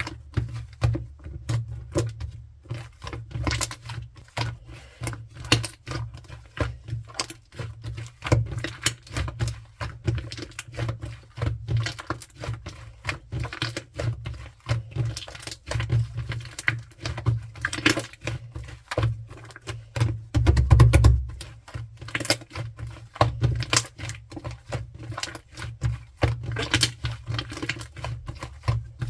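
Shaving-foam slime being squished and pressed by hand: a dense, irregular run of small sticky clicks and pops over a low handling rumble, with a louder, heavier squish about two-thirds of the way in.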